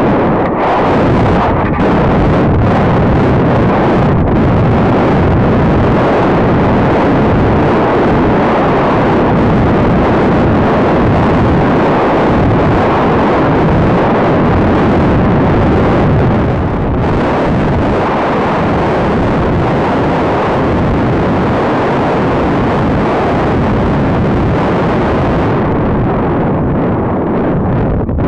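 Steady, loud wind rush on the onboard camera's microphone as a high-power rocket descends. It eases slightly about two thirds of the way through.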